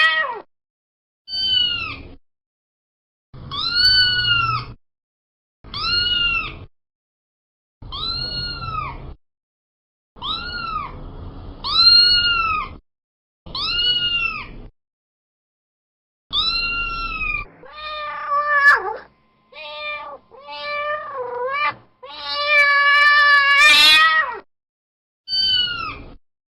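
Domestic cat meowing again and again, about a dozen separate meows with silent gaps between them, each rising and falling in pitch. In the later part the calls turn longer and waver up and down, with one long, loud, drawn-out call near the end.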